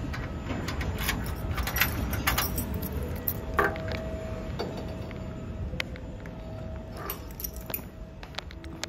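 Keys jangling and clinking with a run of sharp metallic clicks as a glass shop door is unlocked and opened.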